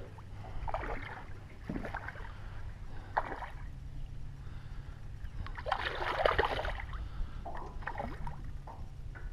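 A hooked trout thrashing and splashing at the water's surface during the fight, several separate splashes with the biggest about six seconds in, over a steady low hum.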